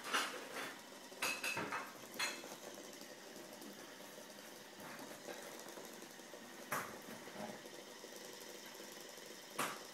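A battery-powered self-bouncing ball vibrating inside a stuffed teddy bear, its small motor whirring steadily. Sharp clicks and knocks come in a cluster over the first two seconds, with one more at about seven seconds and another near the end.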